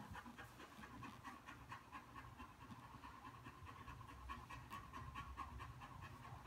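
Doberman panting quickly and steadily, faint.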